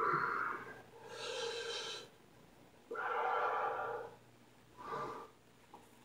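A man breathing hard through the mouth: four forceful puffs of air, a sharp one at the start, two longer ones about a second each, and a short one near the end. They are the straining breaths of a bodybuilder holding flexed poses.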